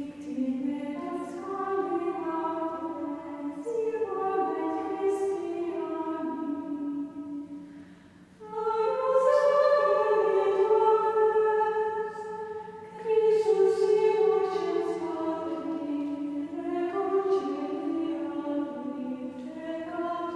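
Choir singing slowly in long, held notes. There is a short break between phrases about eight seconds in, after which the singing comes back louder.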